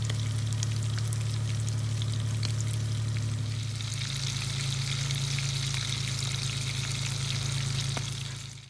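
Fish sizzling and crackling as they pan-fry in hot oil. The crackle grows a little louder about four seconds in, over a steady low hum, and the sound cuts off abruptly at the end.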